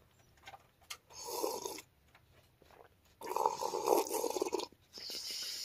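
A person drinking from a mug: three airy sipping and breathing sounds, a short one about a second in, a longer, louder one past the middle, and a brief one at the end.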